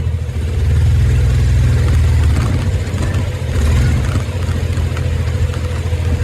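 Yamaha ATV engine running steadily, a low, rapid exhaust pulse that holds roughly the same pitch.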